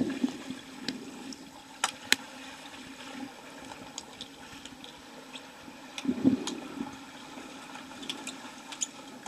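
Underwater pool ambience picked up by a submerged camera: a steady watery hiss with two louder bubbling bursts, one at the start and one about six seconds in, and a few scattered sharp clicks.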